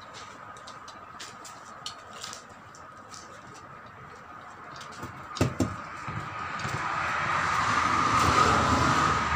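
A motor vehicle passing close by: its noise swells over about three seconds, peaks, and starts to fade near the end. Before it come light clicks and two sharp knocks about halfway through, from the wheel and tyre being handled.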